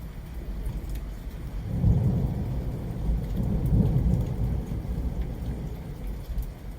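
A roll of thunder over steady rain. The rumble swells about two seconds in, swells again near four seconds, then dies away, leaving the rain.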